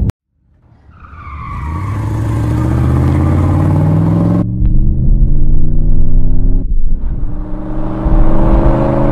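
Car engine fading in and accelerating, its pitch rising over a few seconds. It then cuts to steadier engine running, twice.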